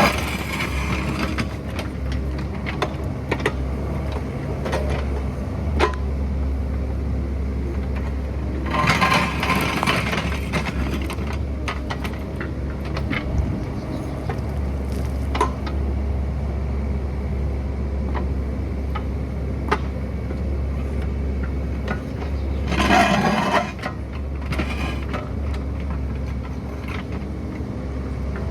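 Excavator's diesel engine running steadily with a low drone, with three louder rushes of noise: at the start, about nine seconds in, and about twenty-three seconds in, and scattered clicks and knocks.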